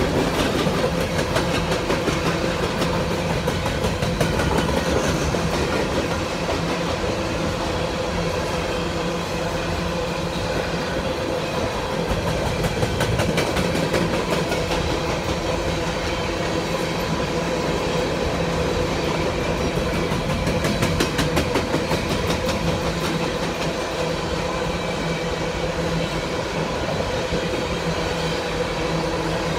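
Freight train of hopper cars rolling past at close range: a steady rumble of steel wheels on the rails with rhythmic clickety-clack as the wheels cross rail joints.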